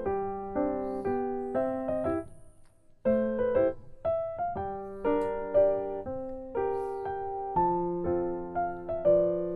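Background piano music: a gentle melody of struck notes that fade away, pausing briefly about two seconds in before going on.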